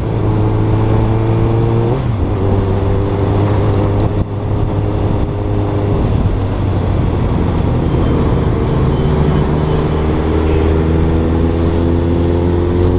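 Suzuki Katana's inline-four engine running at steady cruising revs under road and wind noise. The engine note shifts about two seconds in and rises slowly near the end as the bike speeds up.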